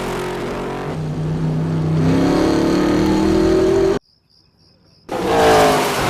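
Race car engine sound effect running hard and revving higher, cutting off abruptly about four seconds in, then coming back loud a second later with a falling pitch.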